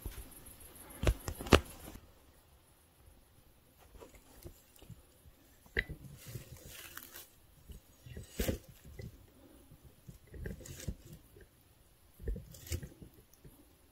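Irregular close crunches and knocks: two sharp loud knocks about a second in, then scattered clicks and short crunching noises.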